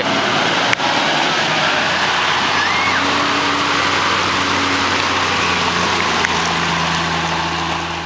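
Toyota Land Cruiser 80 Series four-wheel drive wading through a river: water splashes and rushes around the wheels over a steady low engine note. The engine note grows stronger in the second half. There is one sharp knock under a second in.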